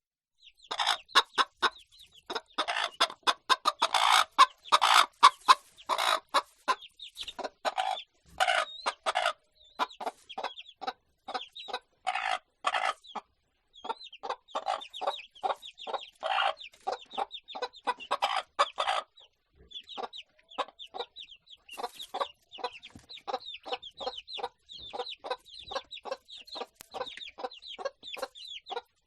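Domestic chickens clucking: many short, repeated clucks from several hens, dense and loud in the first third, then a steadier run of quick clucks at about two or three a second.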